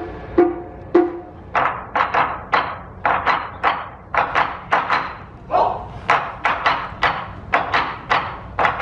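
A series of sharp knocks or claps, about two to three a second and unevenly spaced, each with a short ringing decay.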